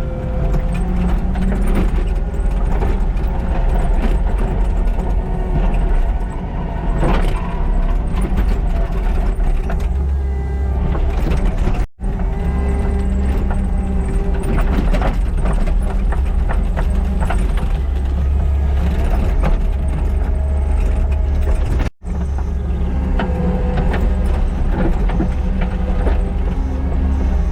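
Kubota SVL97-2 compact track loader's diesel engine running steadily under load while grading hard, frozen ground, with scattered clanks and scrapes. The sound cuts out for an instant twice, about twelve and twenty-two seconds in.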